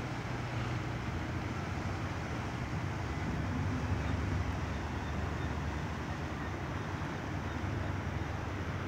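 A low, steady mechanical rumble over a wash of outdoor noise, swelling slightly about four seconds in.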